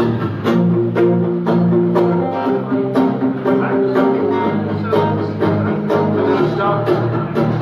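Live band-style music led by an electric guitar, with sustained notes over a steady beat of about two strokes a second; an instrumental passage with no singing.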